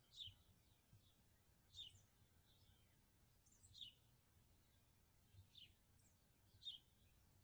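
Bird chirping: short, high chirps that fall in pitch, five of them about one to two seconds apart, over a faint low background hum.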